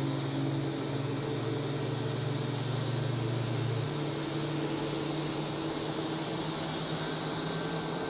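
Jet airliner taxiing with its engines at idle: a steady rushing noise with a low hum underneath that drops away about halfway through.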